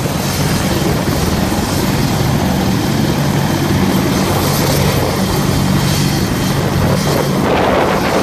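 AH-64 Apache helicopters running on the ground: rotor blades beating rapidly and steadily over the whine of their twin turboshaft engines. Near the end a gusty rushing noise swells over it, wind or rotor wash hitting the microphone.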